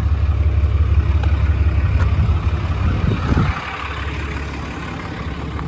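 6.7-litre Cummins inline-six turbo-diesel idling with a steady low rumble, dropping in loudness about halfway through.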